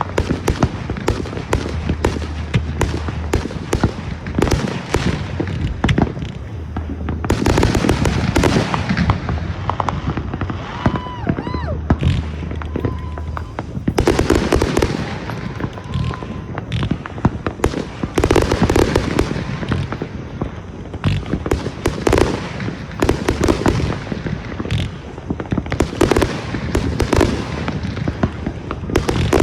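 Consumer fireworks going off in rapid succession: dense bangs and crackling, with heavier barrages several times and a brief whistle about ten seconds in.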